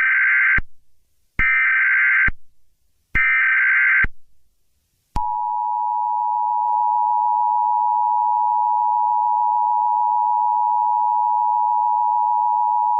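Emergency Alert System tones: three short bursts of the SAME header data warble, each just under a second long. About five seconds in, the steady two-tone EAS attention signal (853 and 960 Hz together) begins and holds.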